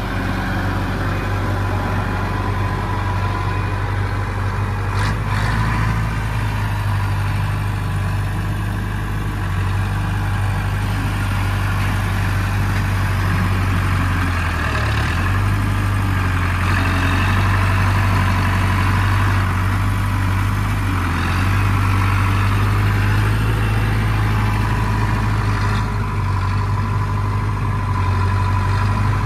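LS Plus 80 tractor's diesel engine running steadily while working its front loader in red gravel, a low even drone whose note dips briefly twice around the middle as the bucket digs into the pile. A thin steady whine sits over the engine.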